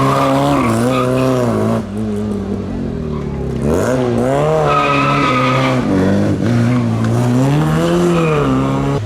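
Classic rally car engine revved hard, its pitch climbing and dropping several times as the driver shifts gears and lifts off. A high tyre squeal runs for about a second around the middle.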